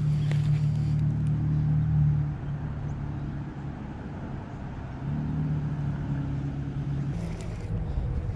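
A motor vehicle's engine humming steadily, louder for the first two seconds and again from about five to seven seconds in.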